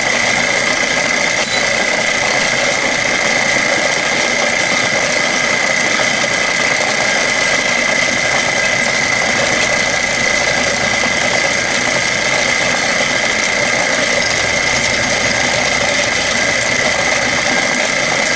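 Milling machine running an end mill that cuts a flat spot into an AR-15 lower receiver: a steady, loud machining noise with a constant high whine.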